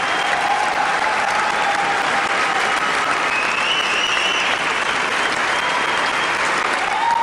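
Large audience applauding steadily, with scattered cheers and whistles over the clapping.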